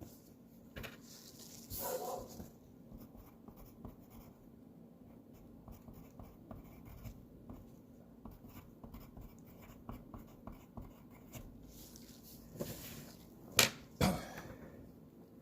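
Faint scattered clicks and taps of typing on a computer keyboard and mouse, with two sharper, louder knocks near the end.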